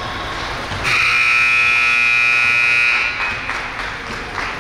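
Scoreboard buzzer sounding once, a harsh, steady buzz held for about two seconds, starting about a second in.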